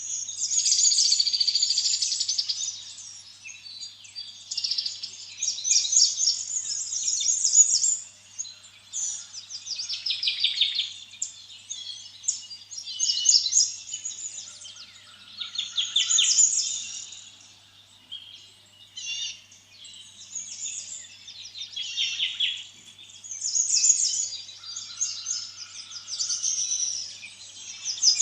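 Birds singing and chirping, several overlapping high-pitched songs of quick trills and chirps that swell and fade in turn.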